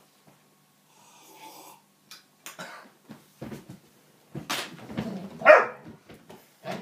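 A Weimaraner making a few short vocal sounds, with scattered clicks; the loudest sound comes about five and a half seconds in.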